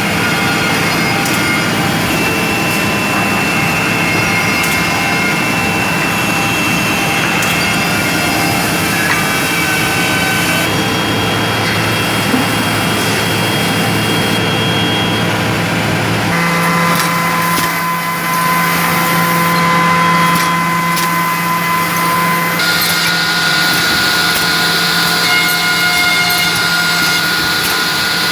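NB8PCHG automatic edgebanding machine running: a steady machine hum with several whining motor tones, working wood panels. The mix of tones changes about 16 seconds in, and a harsher hiss joins about 22 seconds in.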